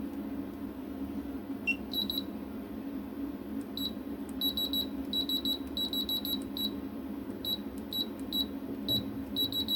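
Multimeter continuity tester beeping in short, high, irregular chirps, singly and in quick runs, as the probes touch freshly resoldered joints on a Raymarine ST60 Tridata board: each beep marks a connected joint. A steady low hum runs underneath.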